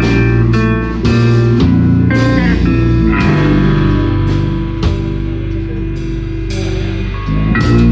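Live rock band playing: electric guitars holding sustained chords over drum kit beats, with repeated cymbal hits.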